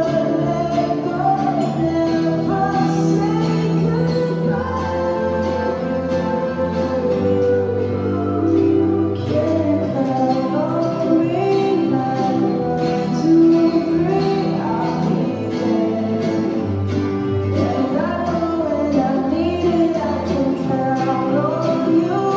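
Acoustic guitars strummed in a steady rhythm while a voice sings a melody over them: a live song performance.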